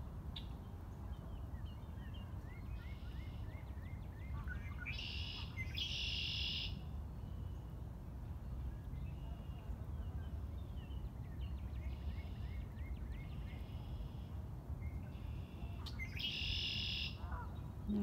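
Songbirds singing in the trees: scattered short chirps and quick rising notes, then two loud buzzy, trilled songs about eleven seconds apart, over a steady low background noise.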